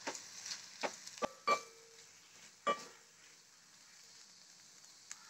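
A wooden spatula stirring and scraping spice-coated onions in a heavy aluminium cheenachatti, knocking against the pan about six times in the first three seconds with a short metallic ring after some strokes, then quieter, under a faint sizzle of the masala powders roasting in oil.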